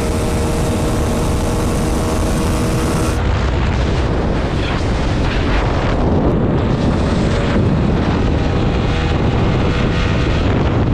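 Motorcycle engine running at high speed, about 100 to 115 km/h, under heavy wind noise on the microphone; about three seconds in the steady engine tone fades back and the wind rush takes over.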